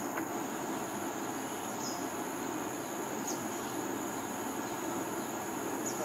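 Steady insect chorus: a continuous high buzz with a faster pulsing trill above it, over a steady low background hum. A few short high chirps come through about two, three and six seconds in.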